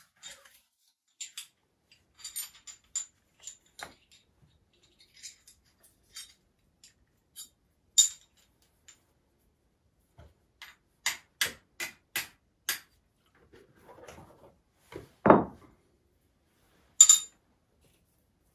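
Flint struck against a steel fire striker: scattered sharp metallic clicks, then a quick run of five strikes about two a second. A single duller knock comes a few seconds before the end.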